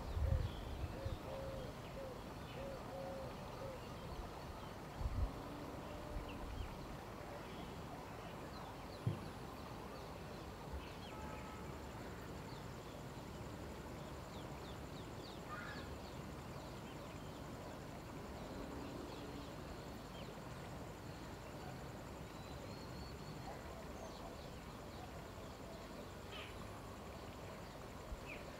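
Outdoor ambience of small birds chirping faintly, with a low repeated hooting call in the first few seconds and a few low thumps in the first ten seconds. A steady high-pitched insect drone sets in about eleven seconds in.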